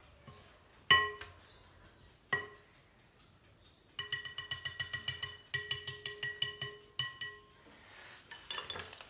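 Metal wire whisk striking the inside of a ceramic mixing bowl: two single clinks, then quick runs of rapid clinks for about three seconds, each leaving the bowl ringing briefly.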